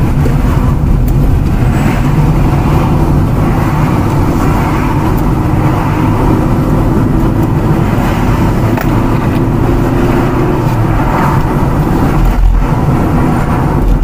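A car's engine and tyre noise heard from inside the cabin while driving along a winding road; a steady running rumble that dips briefly near the end.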